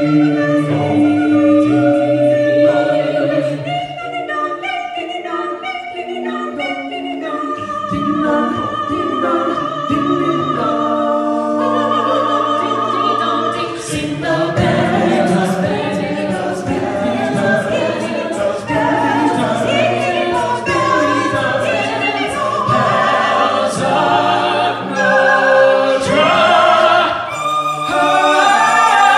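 Six-voice mixed a cappella group singing in close harmony through microphones, with a low bass voice under the chords.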